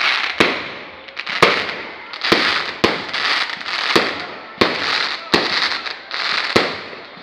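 Aerial fireworks going off in a rapid barrage. About ten sharp bangs come every half second to a second, each followed by a crackling, glittery hiss as the shells burst.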